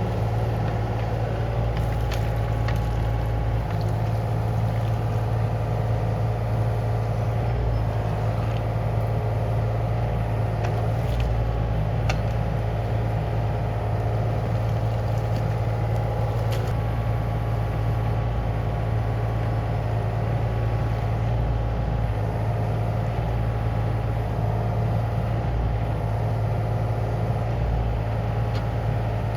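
Yanmar ViO35-6A mini excavator's diesel engine running steadily at a constant speed, with a few faint clicks and knocks over it.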